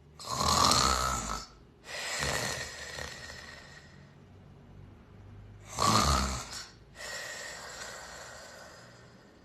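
A person snoring loudly, two breaths: each is a harsh rattling snore about a second long, followed by a longer, softer breath that trails off. This is the kind of loud snoring that may point to obstructive sleep apnea.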